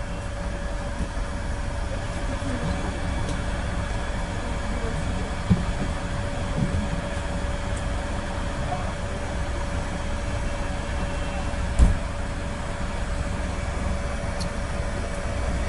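Steady running noise heard from inside a moving public-transport vehicle, a low rumble with a steady hum through it. There is a knock about five seconds in and a louder knock about twelve seconds in.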